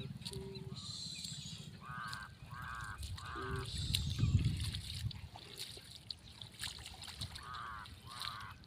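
An animal calling: short repeated calls in a run of three, about half a second apart, then another run of three near the end, over a steady low rumble.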